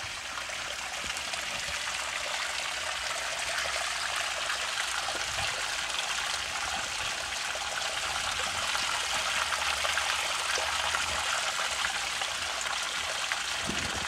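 Spring water running steadily, an even rush of flowing water that grows a little louder in the second half.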